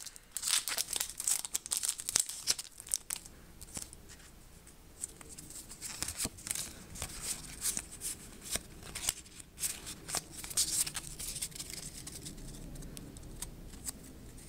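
Pokémon booster pack's foil wrapper crinkling and trading cards sliding and snapping against each other as the stack is handled and fanned out. It comes as a run of sharp crackles and rustles over the first few seconds and again from about six to eleven seconds in.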